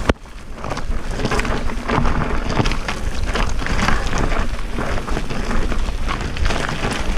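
Mountain bike rolling down a rough, rocky singletrack: tyres crunching over loose stones and the bike rattling over the bumps, with wind buffeting the microphone. A sharp click right at the start.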